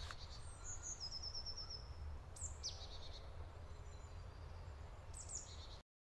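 Woodland birds calling: a quick trill of repeated high notes, then a few sharp falling high whistles, over a low steady rumble. The sound cuts off suddenly near the end.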